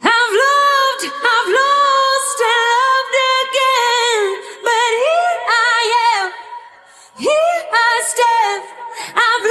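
A woman singing a slow, high melody with a wavering vibrato on the held notes, breaking off briefly about six and a half seconds in.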